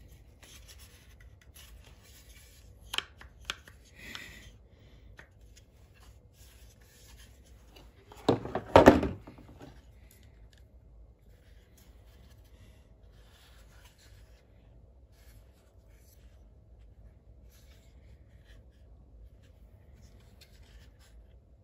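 Hard plastic tool case and its moulded insert being handled as the laser level is unpacked: a couple of light clicks about three seconds in, a loud cluster of plastic knocks and clatter around nine seconds in, then soft rubbing.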